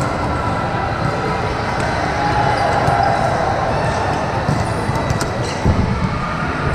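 Busy sports-hall hubbub of many people talking at once, with volleyballs bouncing on the court floor now and then and a heavier thump near the end.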